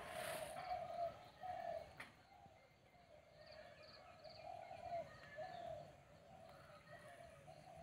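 Birds calling: a low call repeated again and again, dove-like cooing, with a few higher chirps over it. A brief rustle right at the start and a single click about two seconds in.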